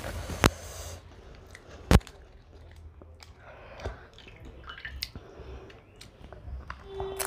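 Crisp fried puri shells of fuchka (pani puri) handled by fingers: two sharp cracks in the first two seconds as a shell is broken open, then soft rustling and wet sounds as it is filled with potato and dipped into tamarind water.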